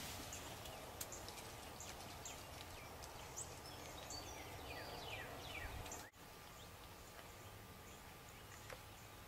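Faint background ambience with small birds chirping: many short, high calls in the first six seconds, thinning out after that.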